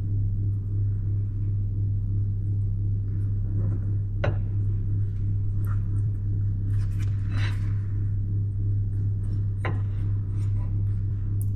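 A steady low hum runs through, with a few light clicks and faint rustling on top.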